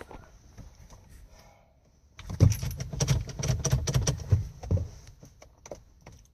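Car keys jangling and rattling with handling knocks, in a dense run of clicks from about two seconds in to about five seconds, after a few faint clicks at the start.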